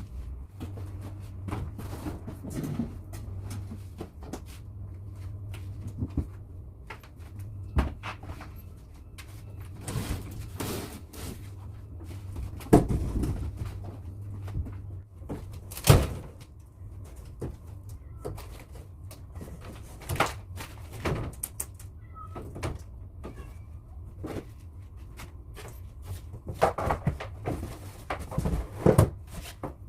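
Irregular knocks, clicks and clatter of a wall partition being taken apart by hand, with two loud thuds about 13 and 16 seconds in and a run of knocks near the end.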